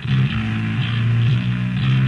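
Punk rock song: bass and guitar playing a riff of changing notes, with a brief drop in level just at the start.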